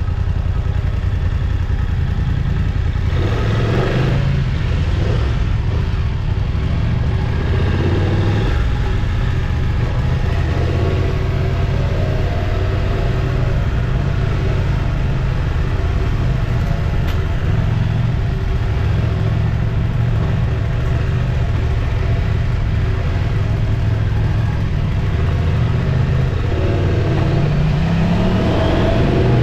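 Motorcycle engine running while riding, with heavy wind rumble on the microphone; the engine note rises near the end as it accelerates.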